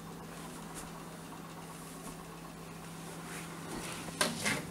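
Steady low hum under quiet room noise, with a couple of brief knocks about four seconds in.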